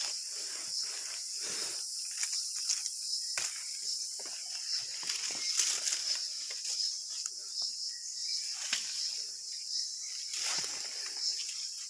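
A steady high-pitched chorus of insects, with irregular rustling and crackling of leaves and brush close by.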